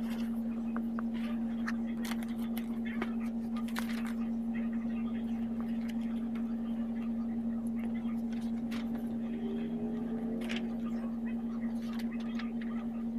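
A steady low hum, with scattered rustling and clicking as a fabric backpack is rummaged through and paper notebook pages are turned.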